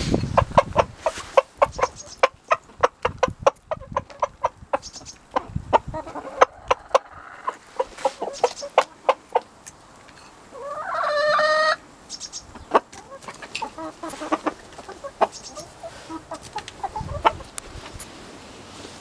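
Chickens clucking: hens and a rooster give a quick run of short clucks, then sparser ones. About ten seconds in comes one drawn-out call that rises at first and then holds for about a second.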